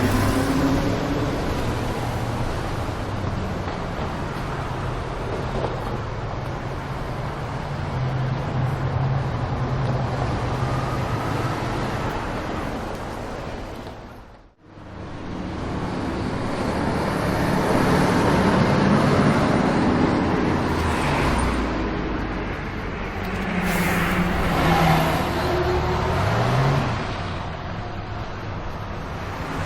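Road traffic ambience: a steady wash of vehicles with low engine hum. It fades out almost to silence about halfway through and comes back, and a short rising engine note is heard near the end.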